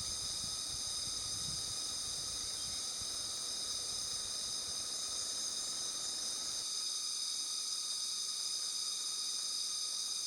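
Steady high-pitched chorus of insects, several shrill pitches held without a break.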